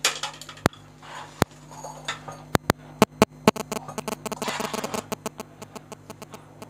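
Cooked rice being moved from a steel pan into a glass serving bowl: irregular sharp clicks and knocks of utensils and hands against the dishes, over a faint steady hum.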